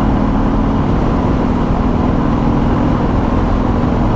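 Harley-Davidson Sport Glide's Milwaukee-Eight 107 V-twin running at a steady speed through its stock exhaust while being ridden: an even, low rumble with a steady mid-low tone over it.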